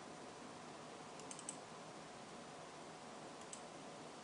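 A few faint computer mouse clicks over a steady low hiss: a quick cluster of clicks a little over a second in and one more click about three and a half seconds in.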